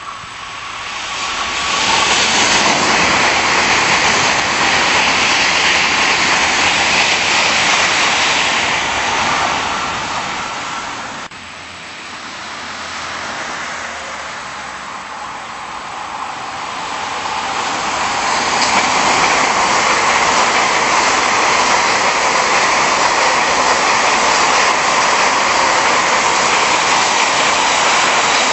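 Tokaido Shinkansen bullet trains passing at speed: a loud, steady rushing of wheels and air. The first stretch of noise cuts off suddenly about eleven seconds in. A second train's rush then builds from about sixteen seconds and holds steady as it runs close by.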